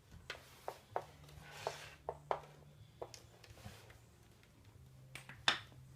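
Small plastic toy pieces being handled and set down, making a scattered series of light clicks and taps, about ten in all, with a brief rustle in between.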